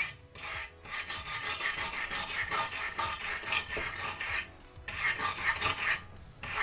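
Slag being scraped and scrubbed off a fresh stick weld on steel sheet: a steady rasping scrub for about four seconds, a brief pause, then about another second of scrubbing.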